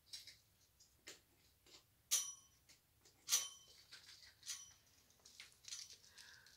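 Faint clicks and clinks of costume jewelry being handled, a few of them with a short metallic ring.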